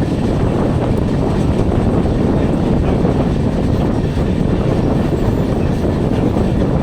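Steady rumble of a passenger train running at speed, heard from on board, with the wheels clattering over the rail joints.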